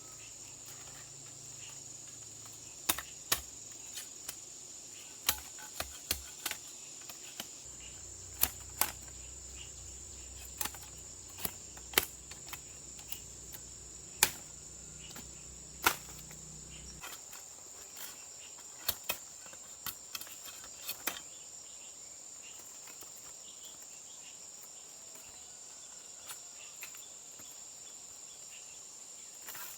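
Steady high-pitched insect drone, typical of crickets, with irregular sharp knocks or taps over it. The knocks are the loudest sounds and come unevenly every half second to two seconds, then mostly stop about two-thirds of the way through.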